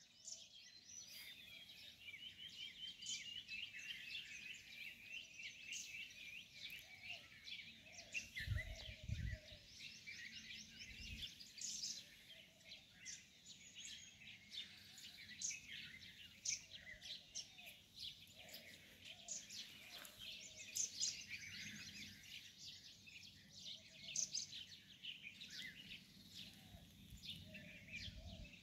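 A chorus of small birds chirping and trilling, a busy mix of quick high notes, with softer lower calls now and then. A few low thumps come about a third of the way in.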